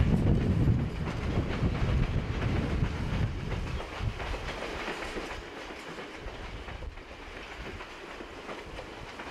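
Steam-hauled passenger train rolling along the rails, fading steadily as it pulls away.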